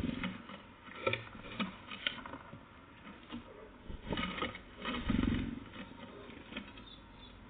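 Small birds pecking and scrabbling at a nut feeder: irregular taps and scratches, with a soft low thump at the start and another about five seconds in.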